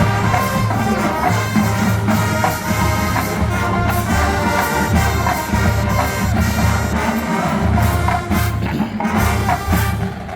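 Marching band playing: brass carry the tune over a steady low drum pulse.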